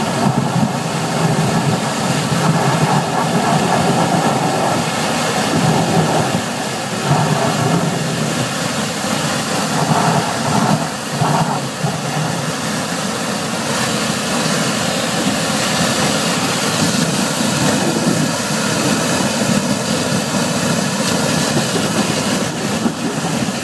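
US Jetter 18 gpm high-pressure sewer jetter running steadily while its Warthog root-cutter nozzle works inside a sewer pipe, water gushing and churning out of the pipe opening. A continuous, even machine-and-water noise.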